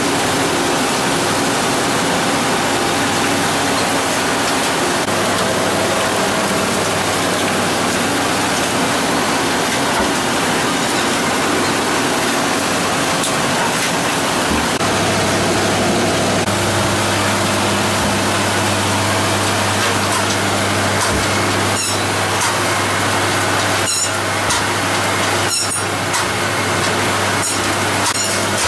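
Steady din of processing machinery on a factory trawler's canning line. A low hum comes in about halfway, and a few sharp clicks or knocks come near the end.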